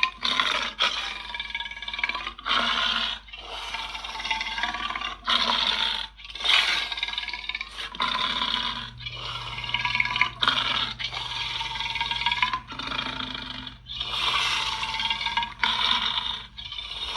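Monster sound effects for the kaiju Skell Sol: a run of about ten short creature calls, each bending in pitch, with brief gaps between them. A low steady hum runs under the calls through the middle stretch.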